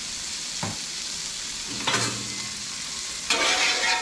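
Asparagus sizzling in hot bacon grease on a Blackstone flat-top griddle. About three seconds in the sizzle jumps louder as the spears are tossed and scraped across the griddle with metal spatulas.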